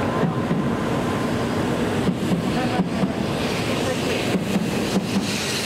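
Tokaido Shinkansen bullet train pulling out of the station, its cars running past close by with steady wheel and running noise. A hiss builds near the end as it gathers speed.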